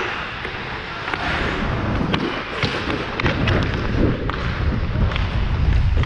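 Ice skates scraping and carving on rink ice under wind rumble on a helmet-mounted camera microphone, with a few sharp clacks scattered through.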